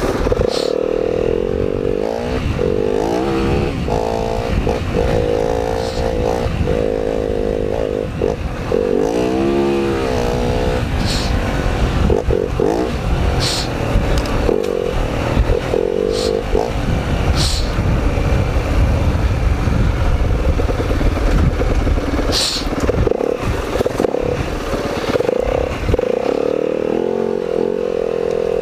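Dirt bike engine running as it is ridden along a trail, revving up and down, with a handful of brief sharp clicks scattered through it.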